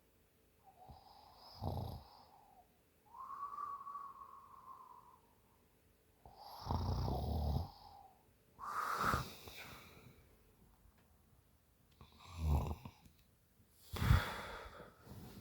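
A woman snoring in her sleep after a few drinks: about six breaths, rough rattling snores alternating with breathy breaths, some of which carry a steady whistling tone.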